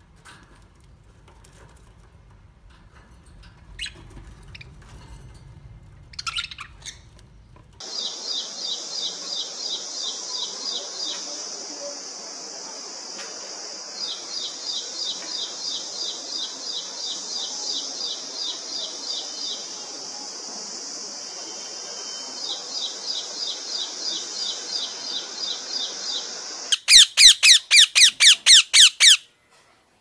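Ashy prinia singing: trains of rapid, evenly repeated high notes, several seconds each, over a steady high hiss. Faint budgerigar chirps come before it. Near the end a loud run of about ten harsh parakeet squawks follows.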